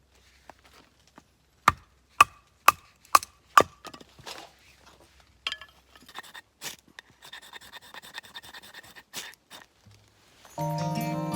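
Five sharp chopping knocks about half a second apart, each with a brief ringing tone, followed by lighter knocks and rustling handling sounds.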